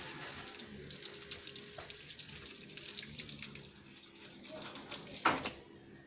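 Water running from a garden hose and splashing over a bunch of leaves being rinsed by hand. A single sharp knock about five seconds in, after which the running water stops.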